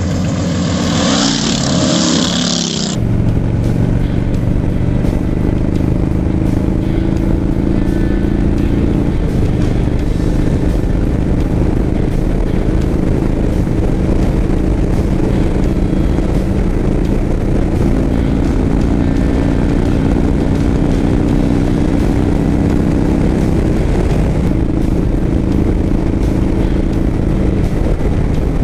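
Harley-Davidson V-twin motorcycle cruising steadily on the highway, heard from the rider's seat with wind rushing past. The first three seconds hold a loud rushing hiss before the engine sound settles in.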